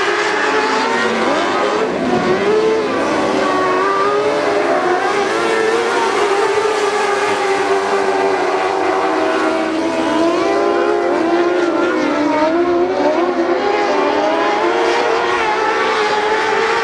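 Several motorcycle-engined dwarf race cars running hard on a dirt oval. Their engines overlap, each pitch rising and falling again and again as the cars lap.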